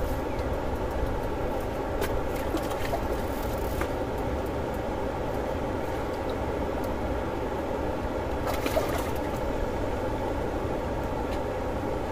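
A steady outdoor drone with a continuous mechanical hum and a low rumble of wind on the microphone, unchanging throughout, with a few faint clicks about two to four seconds in and a brief rustle near nine seconds.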